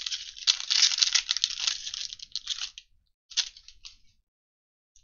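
Foil trading-card pack wrapper crinkling and tearing as it is ripped open and the stack of cards is slid out. A dense crackle lasts about three seconds, followed by one short burst after a brief pause.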